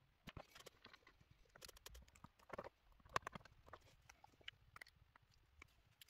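Faint, scattered clicks and taps of a plastic bootleg Deadpool action figure and its parts being picked up and handled on a desk mat, the loudest tap about three seconds in.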